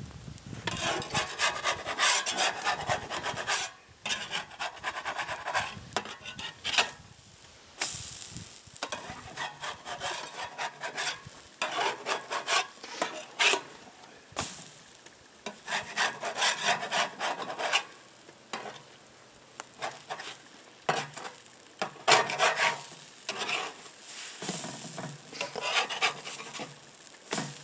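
A utensil scraping and stirring while pancakes are cooked on a steel barrel-lid griddle over a wood fire: bursts of quick scratchy strokes lasting a few seconds each, with short pauses between them.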